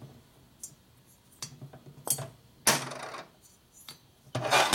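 Sharp metallic knocks and clinks as a cast-iron Sportster Ironhead cylinder head is handled and set on a metal workbench: a few separate strikes, then a quicker cluster near the end.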